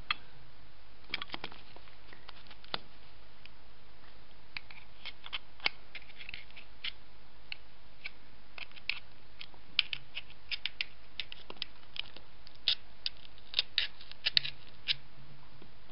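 Light metal clicks and scrapes from a starter motor's armature and brush end cap being handled and fitted together by hand: scattered, irregular clicks that come more often in the last few seconds.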